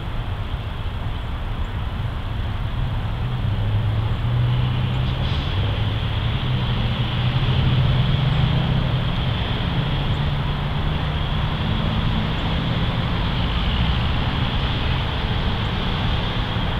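Diesel locomotives of an approaching Norfolk Southern freight train heard at a distance: a low engine drone that grows louder a few seconds in, over a steady hiss.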